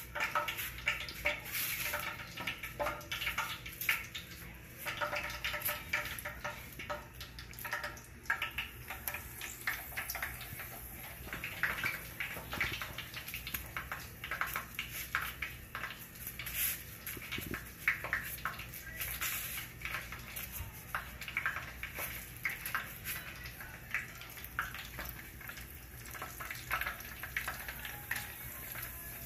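Kitchen clatter: dishes and utensils clinking and knocking many times, with water running.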